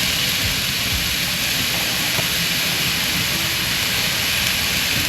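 Finely chopped mushrooms frying in hot olive oil in a cast iron skillet, giving a loud, steady sizzle.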